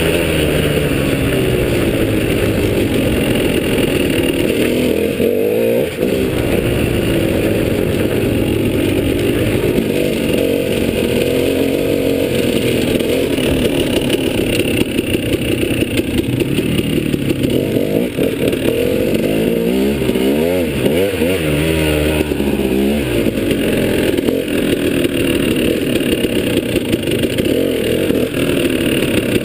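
Dirt bike engine heard close up from the handlebars while riding off-road, its pitch rising and falling as the rider opens and closes the throttle, with quick up-and-down revs about two-thirds of the way through.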